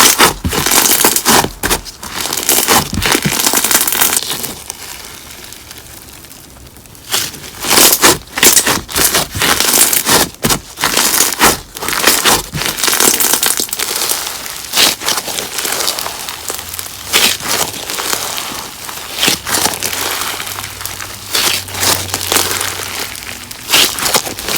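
Crunch slime packed with fishbowl beads being squeezed and pressed by hand, giving dense bursts of crackling and crunching. The crackling drops away for a couple of seconds about five seconds in, then starts again.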